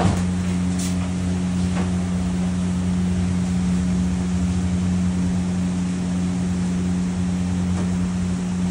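Steady low mechanical hum of a kitchen machine or fan running, with a few faint knocks in the first two seconds and near the end.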